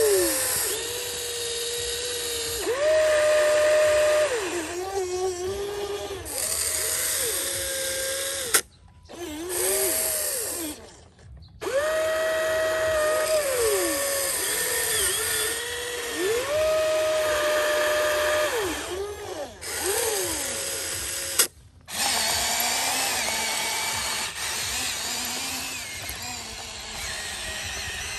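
Small electric motors of a Huina RC excavator whining as it slews and works its boom and bucket, each whine rising in pitch, holding steady, then falling away, over and over. The sound drops out briefly a few times.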